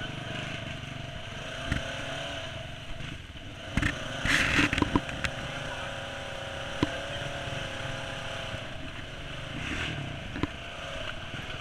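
Polaris RZR 900 side-by-side's engine running steadily while driving a rough mud trail. Knocks and rattles from the machine jolting over bumps come now and then, loudest in a cluster about four to five seconds in.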